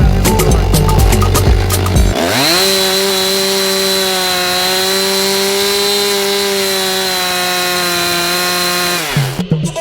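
Two-stroke chainsaw engine revving up quickly and running at a high, steady pitch for about seven seconds, then cutting off. Upbeat backing music plays over the first two seconds.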